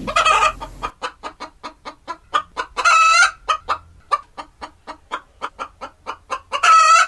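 Hen clucking: a run of short clucks, about three a second, broken by longer drawn-out squawks at the start, about three seconds in and again near the end.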